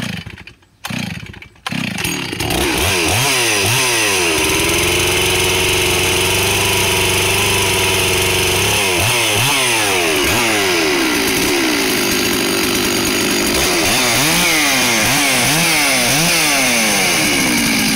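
Stock Stihl 066 Magnum two-stroke chainsaw pull-started with a few short cord pulls, catching about two seconds in. It is then revved up and down repeatedly, held at high revs for about five seconds, and settles back to idle near the end.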